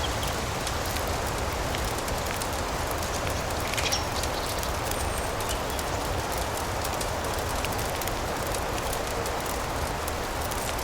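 Layered relaxation ambience: a steady hiss of rain with a constant scatter of small fireplace crackles and ticks, and one slightly louder pop about four seconds in.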